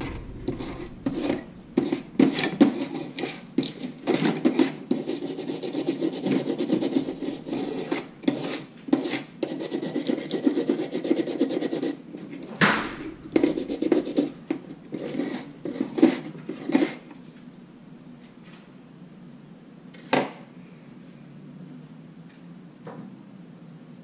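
Small stiff-bristled plastic brush scrubbing a lock's circuit board in quick back-and-forth strokes, clearing corrosion-like residue. The scrubbing stops about two-thirds of the way through, and a single short knock follows a few seconds later.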